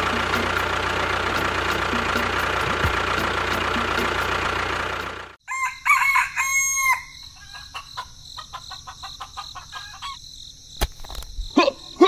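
A loud steady noise cuts off abruptly about five seconds in. A rooster crows briefly, and some quieter clicks follow.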